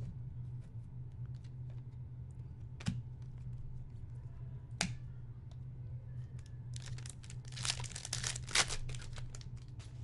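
Trading cards handled with a couple of light clicks, then from about seven seconds in a dense burst of crinkling and tearing of card packaging.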